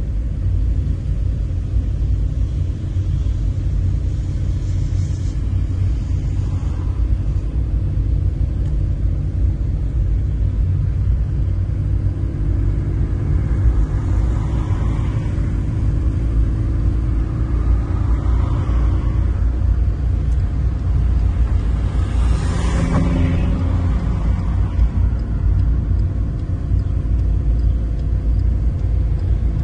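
Steady low rumble of a moving car heard from inside the cabin: engine and road noise. There is a brief louder swell about two-thirds of the way through.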